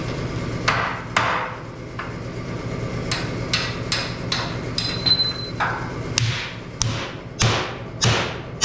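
Hammer blows on steel, about a dozen sharp ringing strikes at an uneven pace, knocking seized leaf-spring bolts out of the Bronco frame.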